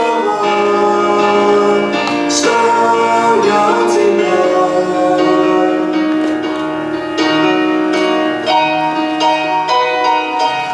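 A hymn sung with keyboard accompaniment, sustained sung notes over held chords.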